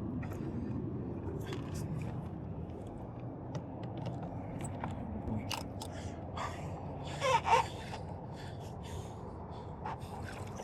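A man breathing hard and gasping with effort while wrestling a very large fish aboard, with a pair of louder gasps about seven seconds in. Scattered light knocks and scrapes sound over a steady background hiss.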